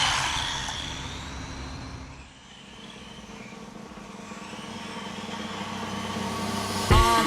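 Electric motor of a 1/18-scale RC buggy whining as the car drives off, fading away over the first two seconds. A steady low hum then swells until music starts near the end.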